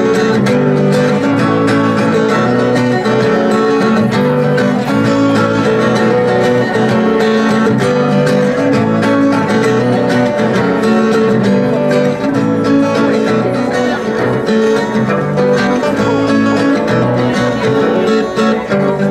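Live acoustic music played on a plucked string instrument, guitar-like, with a dense run of sustained notes that keeps going without a break.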